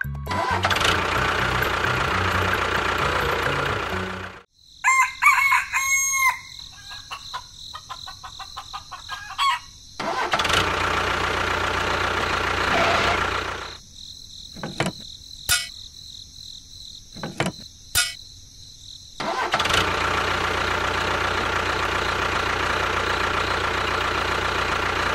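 A rooster crows about five seconds in, between stretches of steady engine noise, with a few sharp clicks in the middle.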